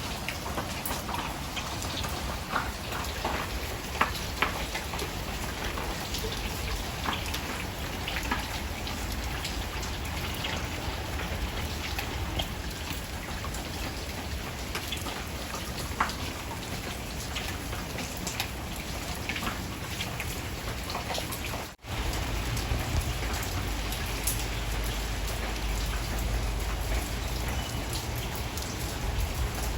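Steady rain falling, with many separate drops tapping through it. The sound cuts out for an instant about two-thirds of the way in, and a low rumble is stronger after that.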